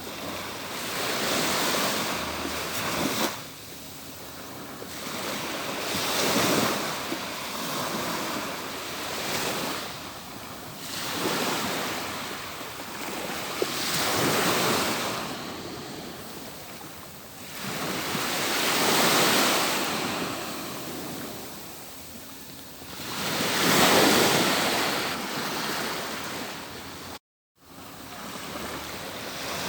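Atlantic Ocean surf breaking and washing up a beach, each wave swelling and fading every few seconds. The sound cuts out briefly to silence about two seconds before the end.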